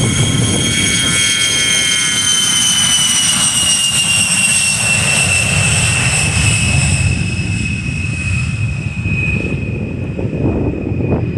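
A-10 Thunderbolt II's twin TF34 turbofan engines running with a high whine over a low rumble. The whine slides slowly down in pitch, and the sound eases a little near the end.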